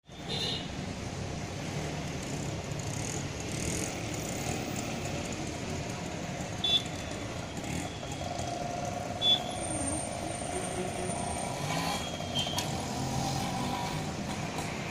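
Railway station ambience: a steady background din with several short, high-pitched beeps, the loudest about six and a half and nine seconds in.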